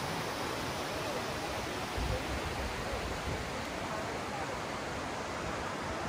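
Steady rushing of water over the rocks and rapids of a shallow mountain river, with a brief low rumble about two seconds in.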